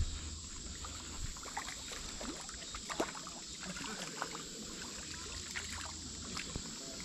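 Quiet riverbank ambience: a steady high-pitched insect chorus, with scattered small ticks and splashes of water at the bank.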